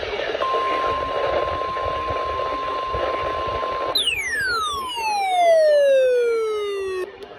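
NOAA Weather Radio warning alarm tone, a steady single-pitched tone over radio hiss, starting about half a second in. About four seconds in it gives way to a loud falling tone that sweeps steadily down for some three seconds and then cuts off.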